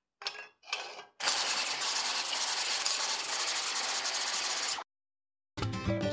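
A spinning abrasive wheel grinding steel tubing: about three and a half seconds of steady grinding that cuts off abruptly, after two brief noises of the tubing being handled. Background music starts near the end.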